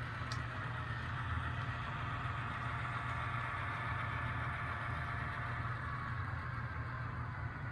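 Sound-decoder diesel locomotive sound from an HO scale model train, the engine running steadily at a low, even throttle with no distinct clanks or horn.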